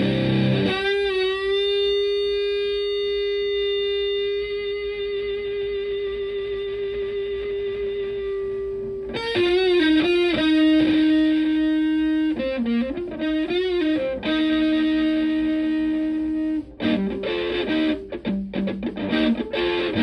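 Electric guitar through an Elk Super Fuzz Sustainar fuzz pedal and a Fender Twin Reverb–style amp. A single note is bent up and sustained for about eight seconds with vibrato. Then comes a lead phrase of bent and held notes.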